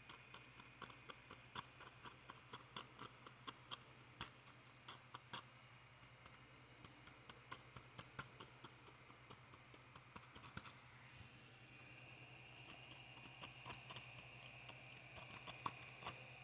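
Faint, irregular small clicks and scrapes from hands and a metal tool working at a crumbly cast in loose powder, over a steady low hum.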